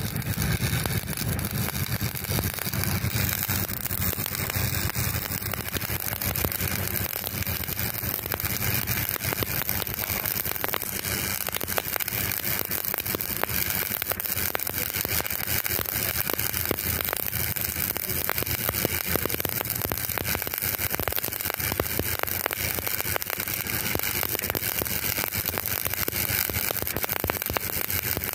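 Electric arc welding: the arc's steady crackling sizzle as a bead is laid on a steel boat shaft joint.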